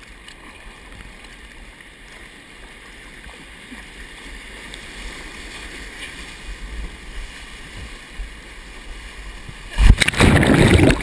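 Rushing water and surf noise that slowly grows louder, then a sudden much louder rush of water for the last second or so, cutting off abruptly.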